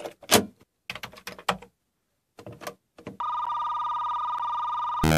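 Plastic clicks and clunks from a Commodore Datasette cassette drive as a tape is pushed in and the drive is worked. About three seconds in, a steady two-pitch electronic beep takes over, and chiptune-style synth music starts right at the end.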